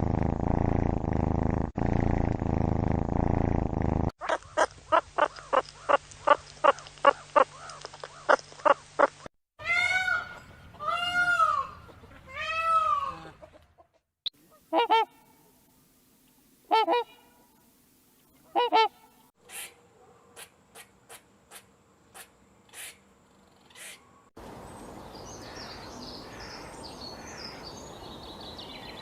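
A string of different animal calls cut one after another: a loud low rumble for about four seconds, then a fast run of short pitched calls, three arched honking calls, scattered sharp calls and clicks, and near the end a hissing background with chirps.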